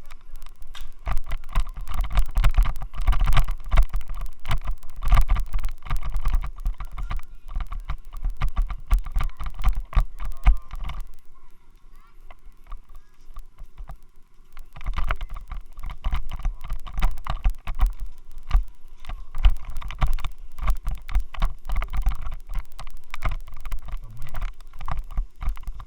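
Action camera rattling and knocking in a loose helmet mount, picked up by the camera's own microphone as a dense, rapid clatter with heavy low thumps. It eases off for a few seconds about halfway through. The noise and vibration come from the helmet mount.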